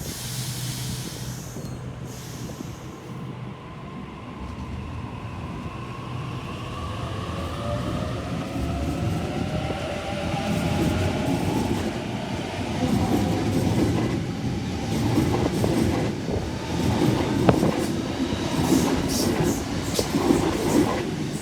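Sydney Trains B-set (Waratah Series 2) electric train pulling out of the platform: its traction motors whine in several tones that rise in pitch as it accelerates and grows louder, with a clatter of wheels over the rails in the last few seconds.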